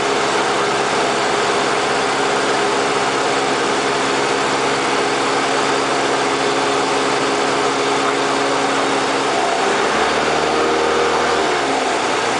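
Piston engine and propeller of a single-engine light aircraft, heard from inside the cockpit as a steady drone over wind noise. The engine note changes about ten seconds in.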